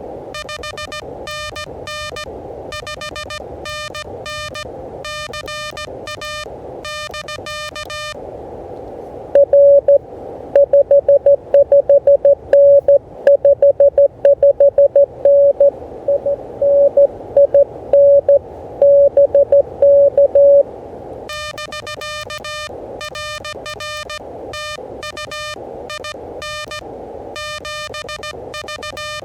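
Morse code (CW) on an Elecraft KH1 handheld transceiver. First the operator's own keyed sidetone, a buzzy tone, for about eight seconds. Then, after a short gap, a louder, purer tone from another station answers over receiver hiss for about eleven seconds, and the buzzy sidetone resumes near the end.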